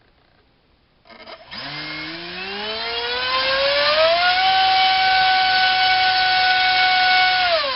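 Rcinpower G2306 2200kV brushless drone motor driving an APC 6x4 electric propeller on a thrust rig: after a few ticks as it starts, it spins up with a rising whine over about three seconds, holds steady at top speed for about three seconds, then winds down near the end.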